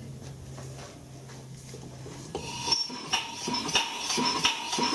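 Small vertical single-cylinder steam engine, fed compressed air, starting up about two seconds in and running with a rhythmic metallic clanking, about three knocks a second. The knock comes from a flywheel that is not yet tightened on its shaft.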